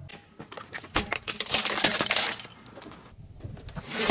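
A car tyre rolling over and crushing things on asphalt, first a juice carton: a burst of crunching and crackling about a second in that lasts about a second, then scattered clicks, and a new crush starting near the end.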